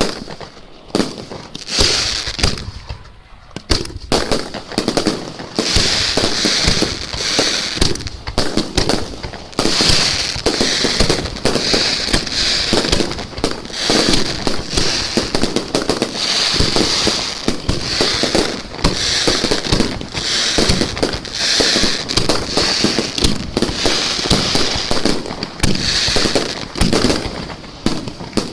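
Fireworks going off at close range at the launch site: a rapid, continuous barrage of bangs and crackles with repeated hissing swells, sparser at first and near-continuous from about four seconds in.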